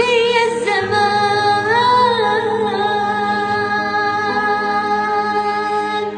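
A female voice sings a long, ornamented closing note over a steady instrumental backing. The note wavers at first, bends once, is then held, and stops near the end.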